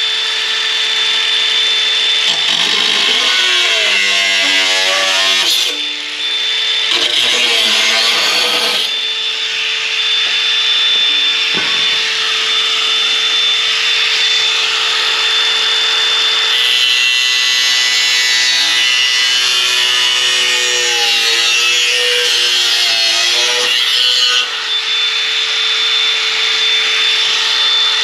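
Angle grinder working on steel sill metal, a steady high whine over loud grinding noise, its pitch sagging and recovering several times as the disc is pressed into the metal.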